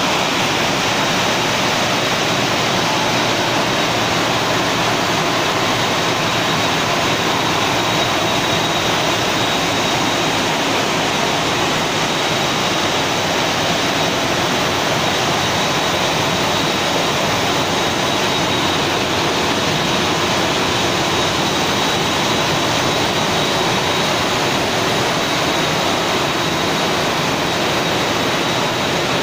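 Steady, loud rushing noise from a running fish-processing line: water sprays in a washing tunnel and the machinery driving the conveyors, with a faint, steady high whine.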